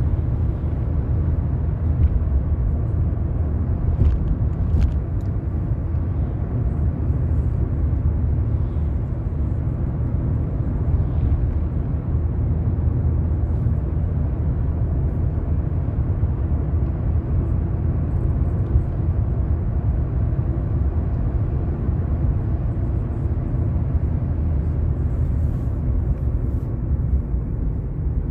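Car driving at steady speed: a continuous low rumble of engine and road noise.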